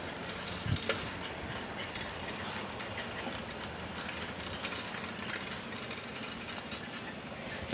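Steady rushing noise of a bicycle being ridden along a paved road, tyres rolling and air moving past the handlebar-held phone, with a small click about three quarters of a second in.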